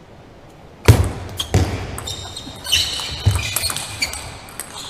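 Table tennis ball being served and rallied: a sharp knock of bat and ball on the table about a second in, then several more knocks at uneven intervals, with a few high squeaks in the middle.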